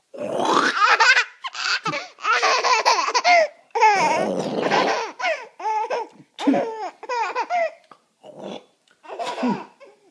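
A baby laughing hysterically in repeated bursts of belly laughter, set off by a man's fake throat-clearing and hawking noises between them. The laughter thins out over the last couple of seconds.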